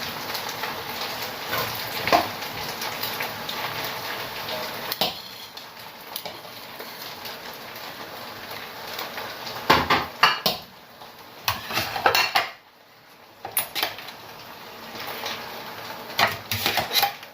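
A metal spoon scraping and knocking against a cooking pot as rice is stirred and mixed in it. A steady hiss runs under the first five seconds or so, and in the second half the knocks come in short clusters of clatter.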